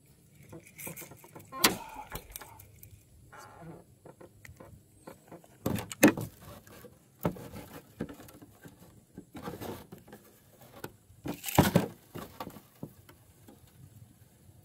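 Spinning reel being cranked to wind in line, followed by clicks, rattles and knocks as the rod, float and hook are handled. Three louder thumps stand out, about two seconds in, near the middle and near the end.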